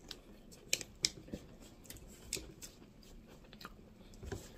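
A person chewing food close to the microphone: faint, with scattered soft mouth clicks and smacks about half a dozen times.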